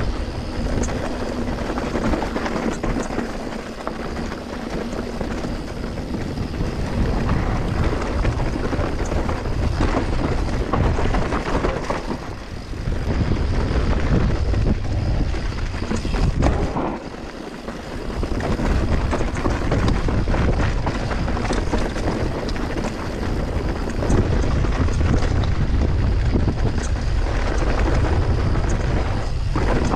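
Mountain bike descending a dirt trail at speed: wind buffeting the microphone and tyres rumbling over the ground, with scattered clicks and rattles from the bike. It eases off briefly just past halfway, then picks up again.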